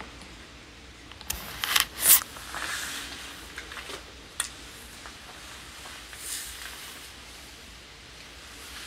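Rustling and scraping handling noises from a phone being moved and set in place, a quick cluster of scrapes about one and a half to two seconds in with the loudest near two seconds, then a single click about four seconds in, over faint room hiss.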